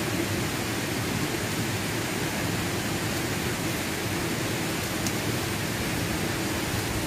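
Steady rushing outdoor background noise, even throughout with no distinct events.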